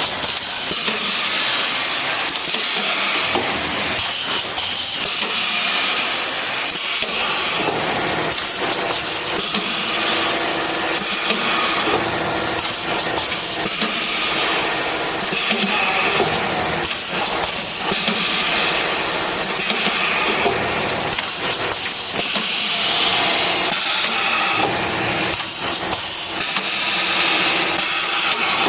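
Automatic bag-packing machines running: a steady hiss with frequent, irregular clicks and knocks from the mechanism.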